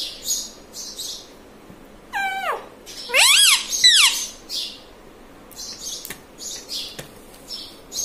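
Indian ringneck parakeet vocalising: a falling call about two seconds in, then a loud run of arching, rising-and-falling calls around three to four seconds in, with softer scratchy chirps and a couple of sharp clicks around them.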